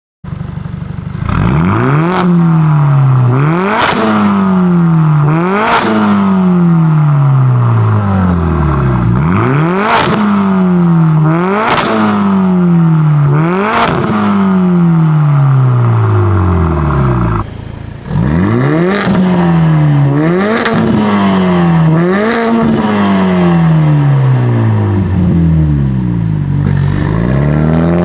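Mercedes-AMG CLA45 S's turbocharged 2.0-litre four-cylinder, through a valved cat-back exhaust with catless downpipes, revved over and over: quick blips about every two seconds, each falling back with pops and crackles. The revving drops away briefly about two-thirds through, then picks up again.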